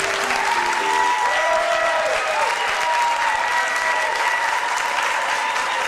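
Audience applauding and cheering, with long whoops held above the clapping.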